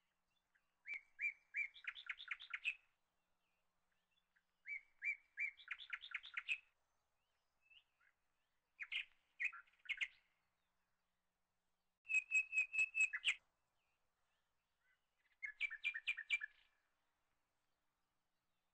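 A bird singing: five short phrases of quick, trilled notes, a few seconds apart.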